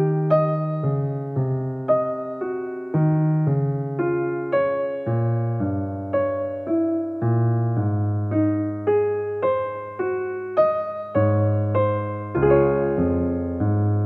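Background music: a slow melody of struck notes that each fade away, about two a second.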